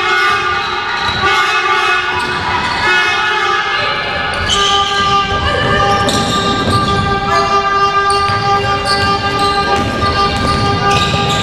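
A basketball dribbling on a wooden gym floor during play, under loud held horn-like tones that change pitch every second or two.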